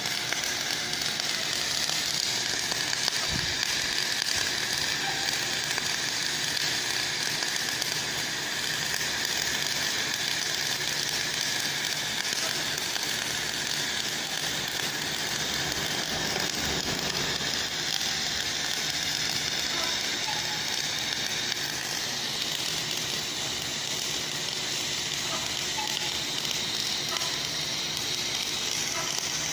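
MIG welding arc running continuously at a steady level, with a dense crackling hiss and no breaks.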